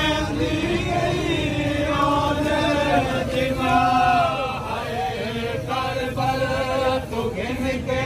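A crowd of male mourners chanting a lament together, several voices overlapping, with one voice gliding up and down about halfway through.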